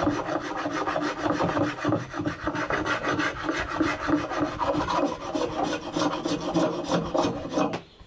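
Oak being abraded by hand with rapid back-and-forth scraping strokes. The strokes stop abruptly near the end.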